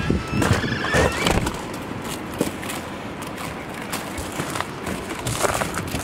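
Footsteps crunching on ice-crusted snow, thickest in the first second or so and again near the end, over wind buffeting the microphone.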